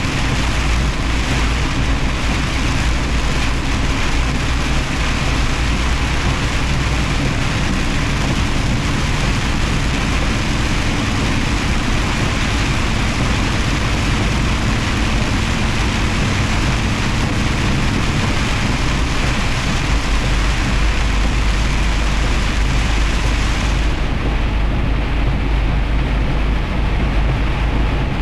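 Semi truck driving on a highway in heavy rain: a steady low rumble of engine and road under a constant hiss of rain and tyre spray. Near the end the high part of the hiss drops away abruptly.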